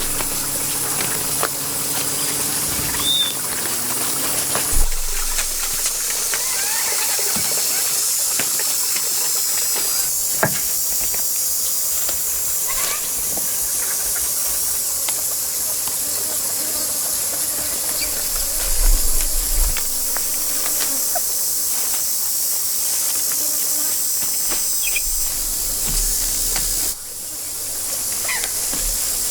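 Steady high-pitched insect chorus with a few short chirps and light knocks; the sound shifts abruptly about five seconds in and again near the end.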